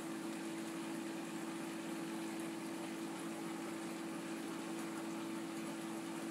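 Aquarium pump running with a steady, unchanging hum and an even hiss of moving water behind it.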